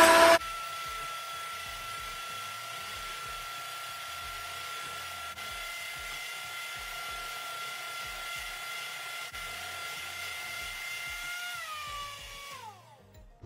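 Electric hand mixer running steadily with a high motor whine as its beaters whip egg batter in a glass bowl. It is louder for the first half-second, and near the end the whine falls in pitch and dies away as the mixer is switched off.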